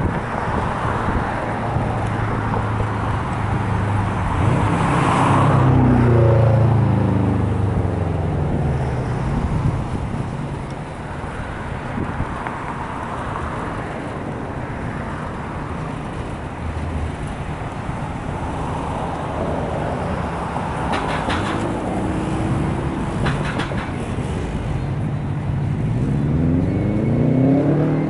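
Fire engine's diesel engine running, its revs falling away about a quarter of the way through and climbing again near the end.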